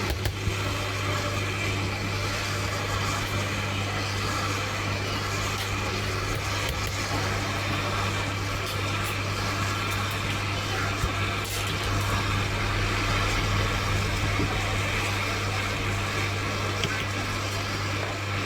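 Hot air rework station blowing with a steady hiss over a low electrical hum, as a chip is being heated off a laptop motherboard.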